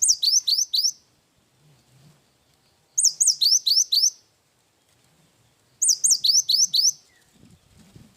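Gelatik batu (cinereous tit) singing three short, loud phrases about three seconds apart, each a rapid run of six or seven high, downward-sweeping whistled notes.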